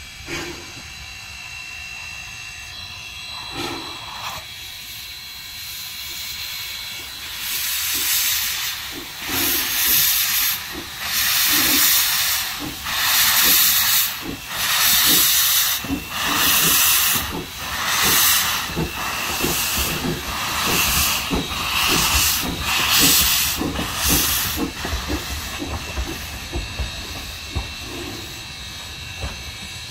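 Narrow-gauge steam locomotive getting under way with steam blowing from low at the cylinders: loud hissing steam blasts, about one a second, building from about seven seconds in over a low rumble, then easing near the end.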